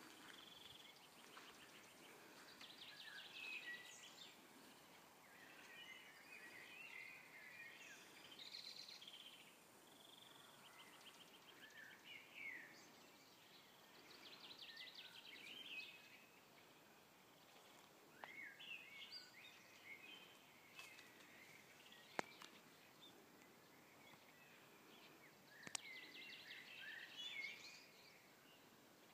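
Faint songbirds chirping and trilling on and off, with a couple of short sharp clicks in the second half.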